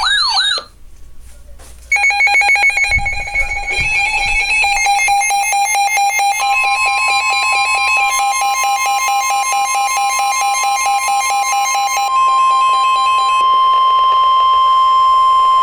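Weather radio alert: a wavering siren cuts off just after the start, then a rapid pulsing electronic beeping begins about two seconds in. A few seconds later the steady single-pitch NOAA Weather Radio warning alarm tone comes on and holds while the beeping stops; the tone signals that a warning message is about to be read.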